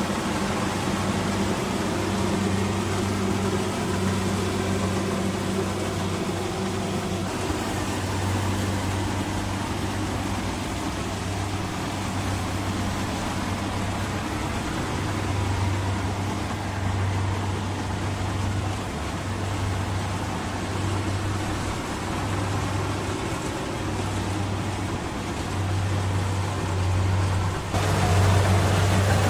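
Rice combine harvester's diesel engine running steadily as it works the field, a low drone with a slight pulse, louder near the end.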